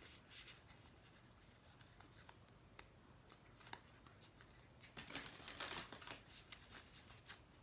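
Oracle card deck being shuffled by hand: faint card flicks and taps, with a denser flurry about five seconds in.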